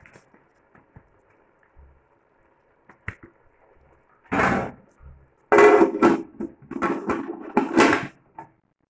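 Aluminium cooking pot and lid clattering as the lid is handled and set on the pot: a quiet start, then several loud clanks and scrapes of metal on metal in the second half.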